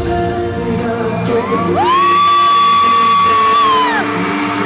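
Live pop song played loud through a concert sound system, with a long, high held vocal note that slides up about two seconds in, holds for about two seconds, and falls away.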